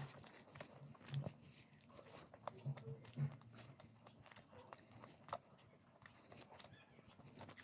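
A person chewing and biting crunchy fried food close to the microphone: faint crisp crunches and mouth sounds, with a few louder bites about a second in, near three seconds and around five seconds.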